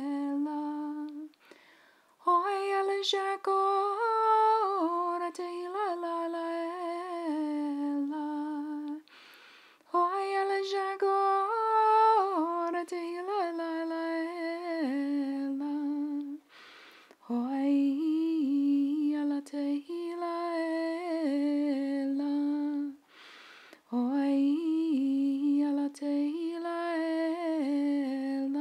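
A woman chanting in tongues as prayer: a slow, repeated melodic phrase with no clear words, each phrase about six seconds long, starting higher and settling lower, with a short breath between phrases.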